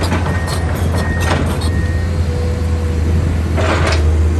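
Komatsu PC210 hydraulic excavator's diesel engine running steadily with a deep, constant drone. A few short rushing noises come over it, around a second in and again near the end.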